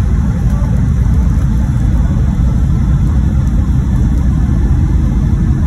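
Airliner cabin noise during the takeoff roll: a steady, loud, low rumble of the engines at takeoff power and the wheels running on the runway, heard from inside the cabin.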